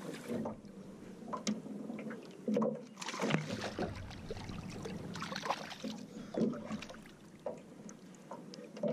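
A hooked largemouth bass splashing at the water's surface beside a small aluminum boat as it is played in, with scattered light knocks and clicks.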